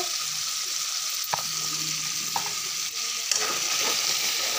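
Garlic paste and ground spices sizzling in hot oil in a metal kadai, stirred with a metal spatula. A few sharp clicks of the spatula on the pan break the steady hiss.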